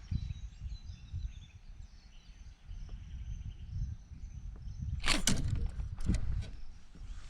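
Wind buffeting the microphone, with birds chirping faintly in the background. About five seconds in comes a sudden loud rushing noise, then a couple of sharp clicks.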